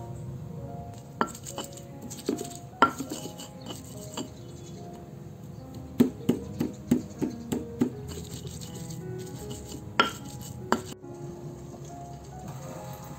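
Kitchen utensils clinking and knocking against pots and pans: scattered single knocks, with a quick run of about eight knocks about six seconds in.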